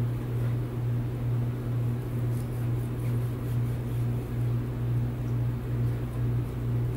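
A steady low hum, with faint rasps of a serrated knife sawing through the crusty surface of an air-fried pork chop on a cutting board.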